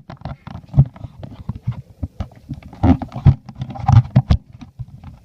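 Irregular knocks and thuds, several a second, with a few louder thumps scattered through.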